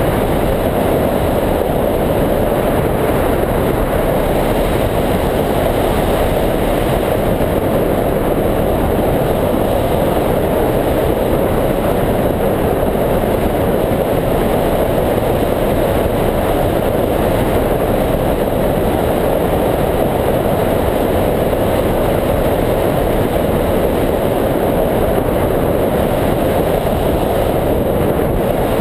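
Steady rush of wind buffeting the microphone of a camera mounted on a hang glider's wing in flight: an even, unbroken noise with no engine.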